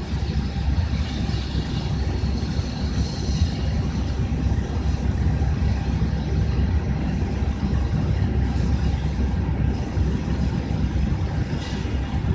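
Steady low rumble and hiss of a parked Airbus A320's cockpit with its aircraft systems powered.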